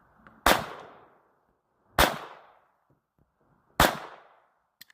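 Three single gunshots, spaced about one and a half to two seconds apart, each with a short decaying echo.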